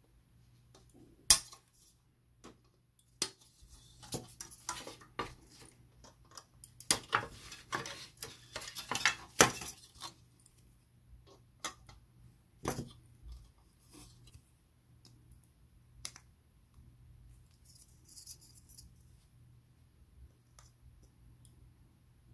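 Hobby side cutters snipping plastic model-kit parts off their runner: a series of sharp clicks and snaps, with a busy cluster of snips and plastic rattling between about 4 and 10 seconds in, then a few sparser snips.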